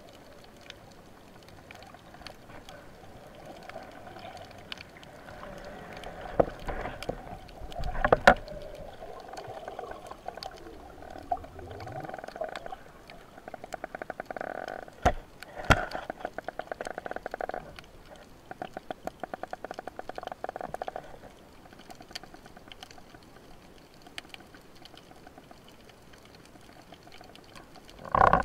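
Underwater sound picked up through an action camera's housing: a steady dull hum with scattered sharp clicks and knocks, the loudest about eight and fifteen seconds in, and stretches of fast clicking that buzz from about thirteen to twenty-one seconds in.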